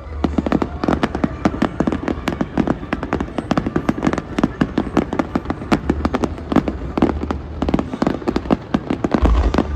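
Fireworks finale barrage: a rapid, continuous string of sharp bursts, several per second and overlapping, starting abruptly, with a heavy deep boom near the end.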